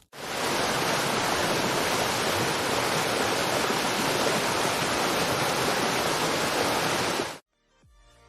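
Steady downpour of rain, a dense even hiss that starts abruptly and cuts off suddenly about seven seconds in.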